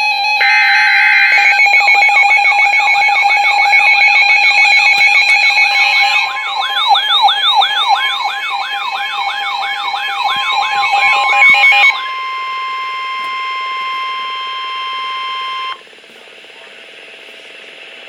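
Emergency Alert System alert tones between two warnings: several electronic tones sound together, with a wavering siren-like wail through the middle. Near the end a single steady tone, like a weather-radio alert tone, holds for a few seconds and cuts off sharply.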